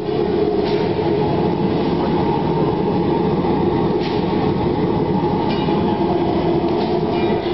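Continuous belt-type nut baking machine running: a steady, loud mechanical drone from its forced-draught burner and wire-mesh belt conveyor.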